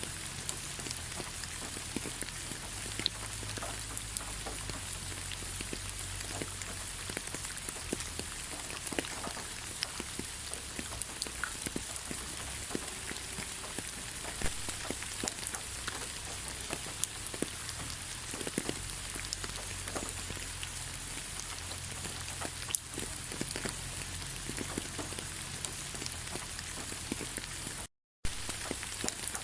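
Steady light rain falling in a forest: an even hiss of rain with many individual drops ticking close by. The sound drops out to silence for an instant near the end.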